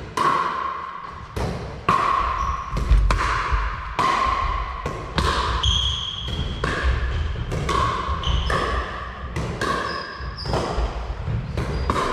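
Pickleball doubles rally: the hollow plastic ball popping off paddles and bouncing on the wooden floor, sharp hits coming about one to two a second, each ringing briefly in the hall. Short high squeaks of shoes on the floor come between the hits.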